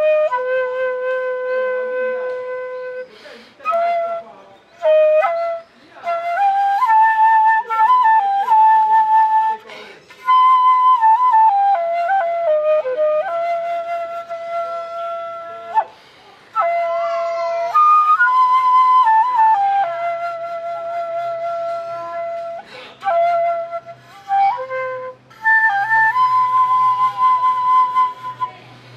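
Background music led by a flute-like melody of long held notes that step up and down in phrases, with short pauses between them.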